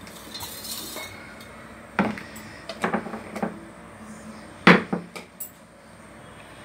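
Metal cookware clanking: a few separate knocks of pots and utensils, the loudest about two-thirds of the way in, after a brief hiss near the start.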